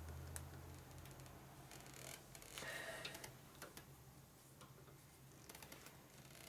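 Faint, scattered metal clicks and ticks of pliers gripping and twisting a sheared-off set screw to work it out, over a low steady hum.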